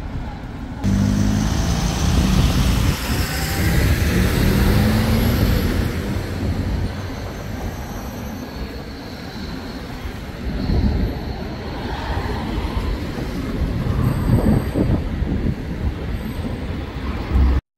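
City street traffic: buses and cars driving past. A bus's engine hum is loudest in the first several seconds. The sound cuts off suddenly at the end.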